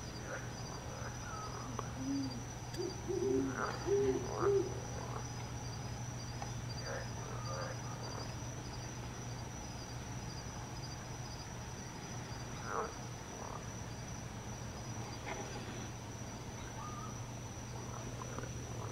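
An owl hooting: a short series of low hoots about two to four and a half seconds in. Under it are steady high-pitched night insects and a faint pulsing insect trill.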